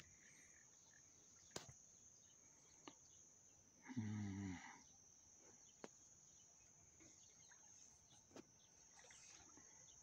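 Near silence on open water, with a faint steady high tone, a few faint clicks, and one short low pitched call about four seconds in.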